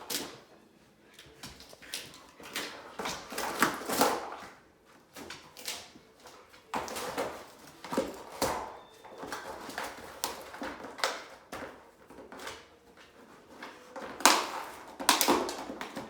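A dog working at a cardboard food puzzle, nosing and pushing small boxes around: irregular scraping and rustling of cardboard, mixed with the dog's own sniffing and breathing.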